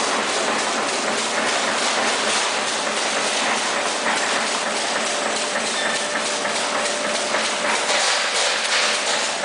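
PLASTMAQ automatic plastic-bag cutting and sealing machine running, a steady mechanical noise with a fast, even clatter as it cycles through cuts and seals.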